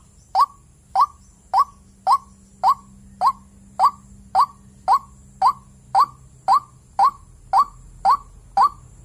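Female white-breasted waterhen (ruak-ruak) calling, a lure call for males: a short rising note repeated very evenly about twice a second.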